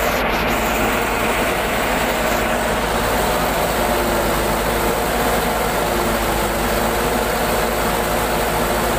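Truck engine running steadily and loud, with an even hiss over it.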